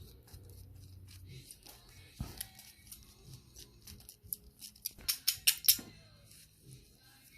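Clicks and taps of small parts and tools being handled, with a low thump about two seconds in and a quick run of sharp clicks about five seconds in.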